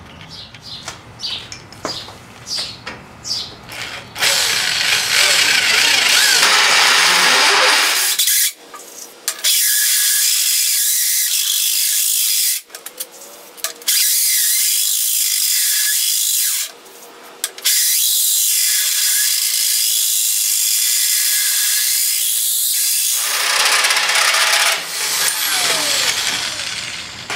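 Drill turning a hole saw through a metal plate lubricated with WD-40: a loud, shrill cutting noise that stops briefly three times and fades near the end as the hole is finished. A few light clicks and taps come before the cut starts.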